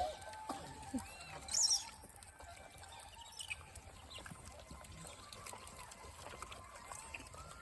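Faint high-pitched animal chirps and squeaks, the loudest a short cluster of rising and falling calls about one and a half seconds in.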